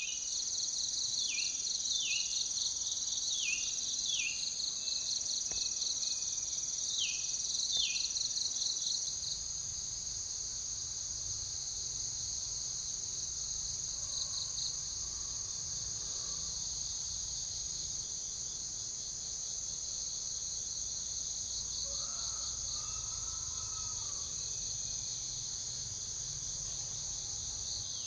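Dense chorus of insects, crickets or cicadas, making a steady high shrill with a fast pulse. In the first eight seconds about six short falling calls repeat below it, like a bird calling. About nine seconds in, the chorus drops slightly and a low rumble joins it, with a few faint calls later.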